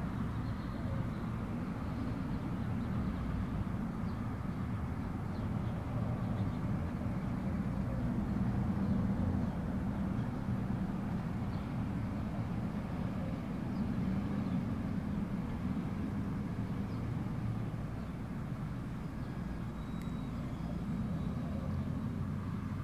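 Steady low outdoor background rumble with no distinct events, swelling slightly around the middle.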